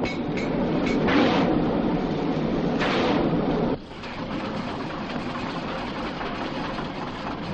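Dense mechanical rumble and clatter, cut off abruptly about four seconds in and followed by a steadier, quieter mechanical noise.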